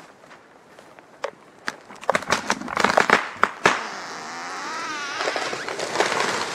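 Spruce trunk cracking and popping at the hinge as the wedged tree begins to tip over, a quick run of sharp snaps about two seconds in. This is followed by a rising rush of its branches sweeping through the neighbouring crowns as it falls, with a wavering creak in the middle.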